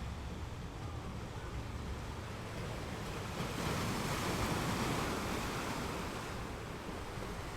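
Ocean waves washing onto a beach, with one wave swelling in about halfway through and then ebbing away.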